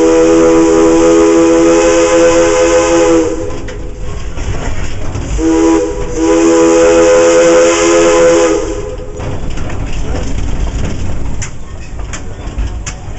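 Steam locomotive Viscose #6's chime whistle sounding two long blasts of several notes at once, the first already under way and the second starting about two seconds after it ends. After the whistle stops, the train runs on with rail clicks near the end.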